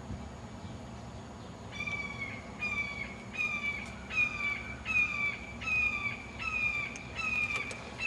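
Juvenile red-shouldered hawk calling a series of about nine loud, slightly down-slurred kee-ah screams, one a little under every second, starting about two seconds in.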